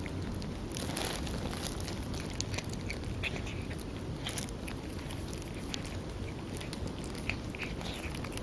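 Mother cat chewing and licking, with small irregular wet clicks and crackles, as she eats the afterbirth over her newborn kitten.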